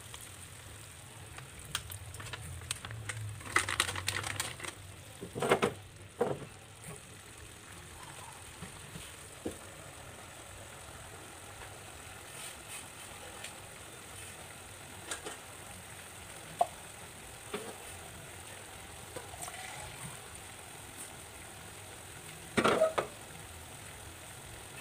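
Chicken adobo sizzling and simmering faintly in a frying pan, with a splashy stretch a few seconds in as liquid is poured in. A couple of sharp clinks follow as a glass lid is set on the pan, and there is a short clatter near the end.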